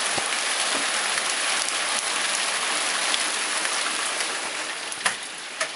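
Steady rain falling on paving, heard through an open back door as an even hiss. About five seconds in it drops away with a couple of sharp knocks as the door is shut.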